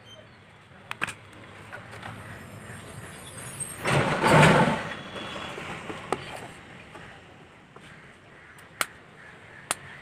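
Sharp plastic clicks and a loud scraping rustle, about a second long, as a smartphone's snap-on plastic back cover is handled and pulled off, with more small clicks as the exposed frame and battery are handled.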